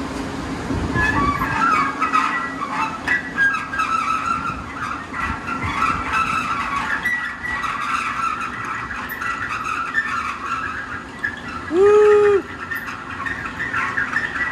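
Wheeled steel rack carrying radiator shutters being pulled out of a powder-coating oven and rolled across a concrete floor: scraping and rattling with scattered squeaks, and one loud squeal lasting under a second near the end.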